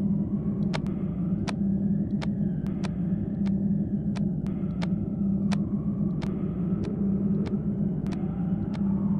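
A steady low rumbling drone with a strong hum, under sharp, evenly spaced clicks about three every two seconds and faint high tones drifting in pitch.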